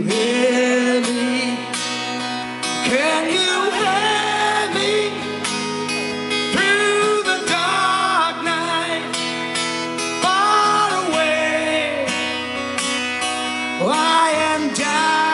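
Live band music: a male voice sings long held phrases that slide up into each note, over strummed acoustic guitar and drums.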